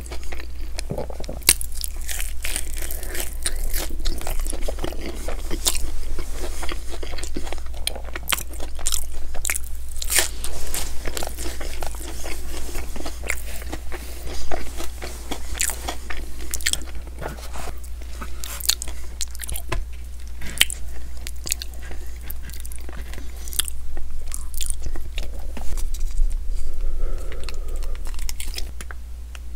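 Close-miked crunchy biting and chewing of a crisp fried hash brown, with many sharp crunches.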